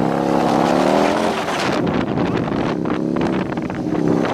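Motorcycle engine running as the bike is ridden slowly, its pitch rising and falling with the throttle. Wind buffets the microphone in the middle of the stretch.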